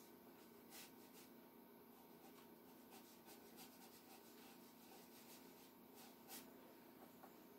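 Near silence: a faint steady hum, with the soft scratch of a fine round watercolour brush stroking across paper, a little clearer about a second in and again near the end.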